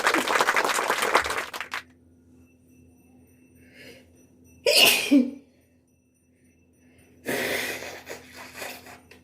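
A woman sneezing and coughing, her nose set off by sniffed pepper powder: a long noisy fit at the start, one sharp sneeze about five seconds in, and another noisy burst near the end.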